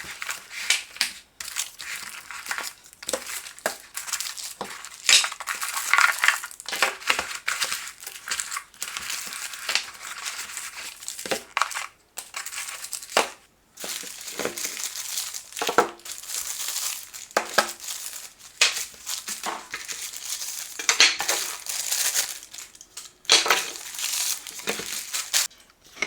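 Product packaging being opened and handled by hand: irregular crinkling and crackling of plastic and cardboard, with the occasional light knock.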